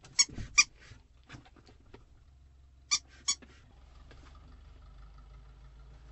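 A squeaky rubber chicken dog toy squeaking four times in two quick pairs: one pair right at the start and another about three seconds in. A faint steady low hum follows.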